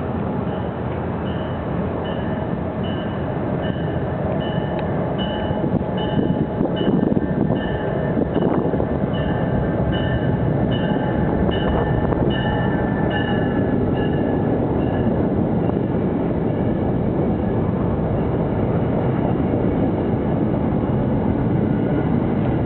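Metro-North push-pull train, a Genesis P32AC-DM diesel shoving seven Shoreline II coaches, rolling through the station with a loud, steady rumble. Its bell rings repeatedly, a little faster than once a second, and fades out about two-thirds of the way through.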